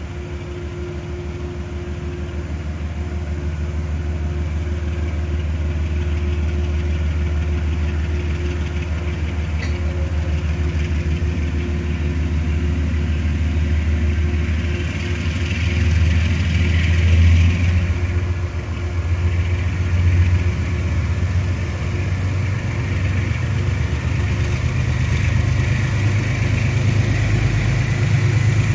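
A large diesel engine running with a steady low throb, growing gradually louder, with a brief swell about halfway through.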